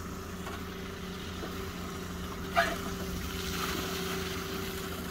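Excavator's diesel engine running steadily as it digs, a constant low hum, with a single sharp knock about halfway through.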